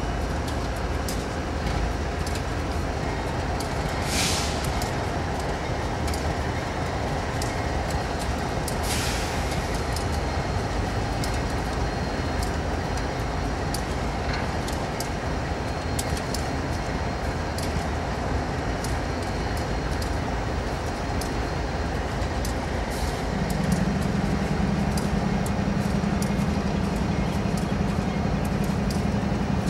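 CSX diesel locomotive running steadily while it is turned on a turntable, with two short hisses of air about four and nine seconds in. About 23 seconds in a deeper steady drone comes in and the sound gets louder.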